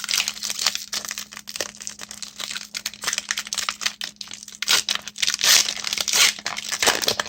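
Pokémon booster pack's foil wrapper crinkling as it is handled and torn open, in quick irregular crackles. The loudest stretch comes about five to six seconds in.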